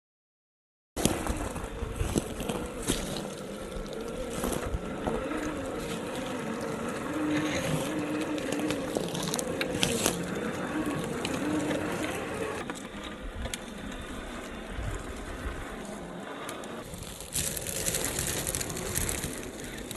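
A Traxxas TRX-4 G 500 RC crawler's electric motor and gears whining, the pitch rising and falling with the throttle, over the crunching and clicking of its tyres on forest ground. It starts suddenly about a second in.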